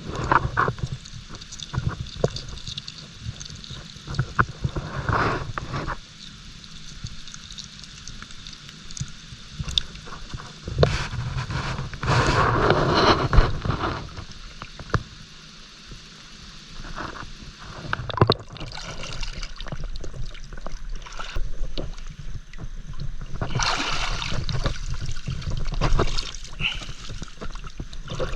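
Water sloshing and gurgling, with uneven swells and scattered small knocks.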